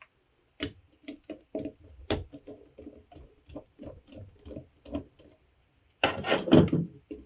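Screwdriver taking small screws out of a metal hard-drive carrier: a string of light, quick clicks, about three or four a second. A louder, brief sound comes near the end.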